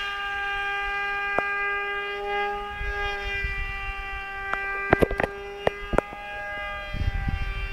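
Electric motor and propeller of a depron RC Su-37 model jet whining steadily at constant throttle, one high tone with many overtones. A few sharp clicks come a little past halfway, over low wind rumble on the microphone.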